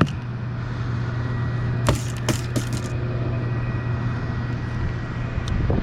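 Steady low hum of an electric trolling motor holding the boat in place on spot-lock, with a few sharp clicks and knocks of tackle being handled.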